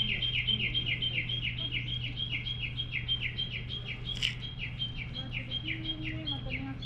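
A bird calling a fast, very regular series of short high chirps that slide downward, about three a second, over a steady low hum.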